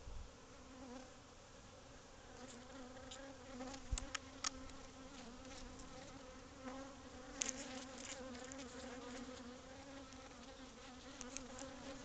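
A swarm of honey bees buzzing at a hive nesting in a wall void, a steady hum from a colony growing agitated at the disturbance. A few sharp clicks cut through it, the loudest about four seconds in and again near seven and a half seconds.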